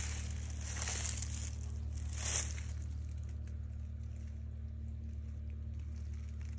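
Three short crinkling rustles in the first two and a half seconds, over a steady low hum that carries on alone afterwards.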